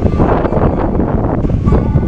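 Loud, low, fluctuating rumble of wind buffeting the camera microphone.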